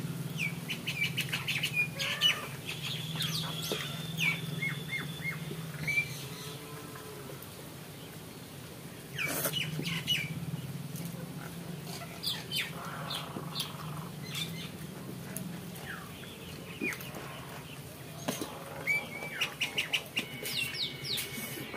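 Small birds chirping in quick runs of short high notes, a few times, over a low steady hum, with a few light clicks.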